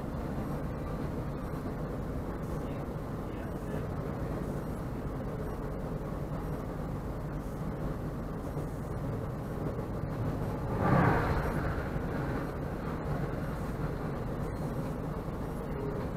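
Steady rumble of a moving train heard from inside the carriage: wheels running on the track, with a brief louder rush of noise about eleven seconds in.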